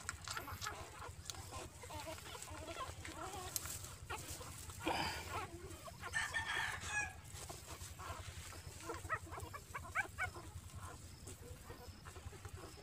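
Chickens clucking in short calls, with a rooster crowing once about five seconds in.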